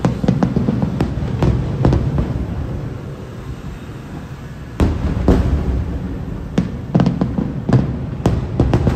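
Aerial fireworks shells bursting in rapid volleys: a quick run of bangs in the first two seconds, a lull, then another volley from about five seconds in, each bang trailing off into a low rumble.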